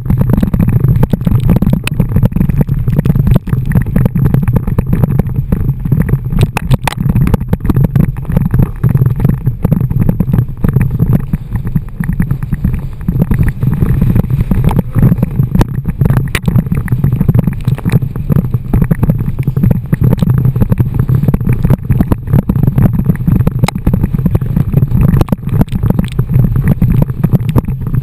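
Loud, rough rushing of wind buffeting the microphone and water splashing against a towed inflatable tube skimming over the sea, with frequent sharp knocks throughout.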